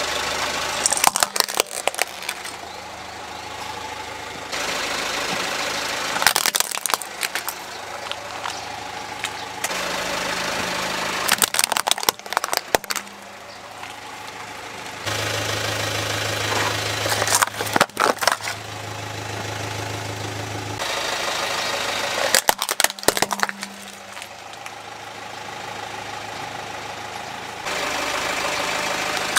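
A car tyre rolls slowly over plastic toys one after another, crushing each with a cluster of sharp plastic cracks and crunches, five times about five seconds apart. A car engine runs steadily between the crushes.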